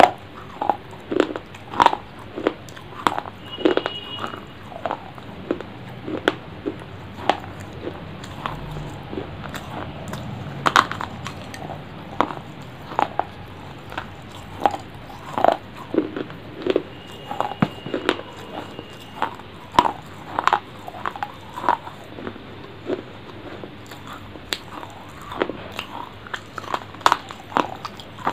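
Close-miked eating mouth sounds: wet chewing, biting and lip smacks in short, irregular clicks, about one or two a second.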